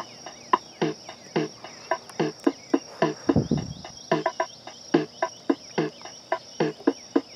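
Evening insects: a steady high cricket trill with short repeated chirps about two or three a second. About three seconds in there is a brief low rush of air on the microphone.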